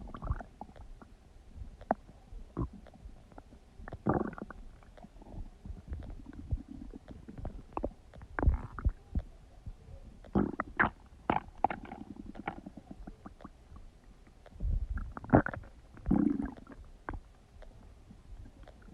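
Human stomach gurgling and rumbling while digesting: irregular wet pops, bubbling gurgles and short squeaky rumbles, several of them loud.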